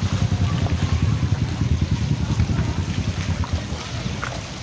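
Wind rumbling on the microphone over the noise of heavy rain and floodwater running through the street.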